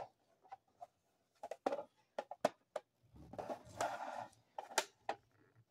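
Scattered light clicks and taps of a plastic diamond-painting drill case being handled, with a brief rustle of wrapping about three seconds in.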